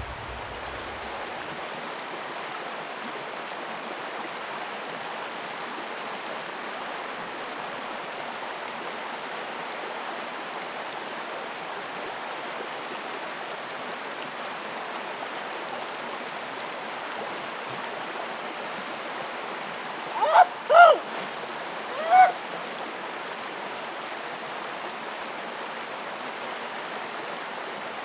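River water running steadily over rocks. About twenty seconds in, three short pitched calls rise above it, two close together and a third about a second later.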